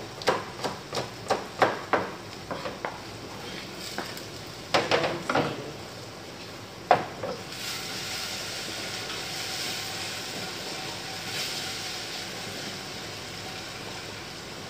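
Knife chopping chili peppers on a cutting board, about three chops a second, then a few louder knocks. From about eight seconds in, a steady sizzle as onions, tomato and chili fry in a hot stainless pot, stirred with a spoon.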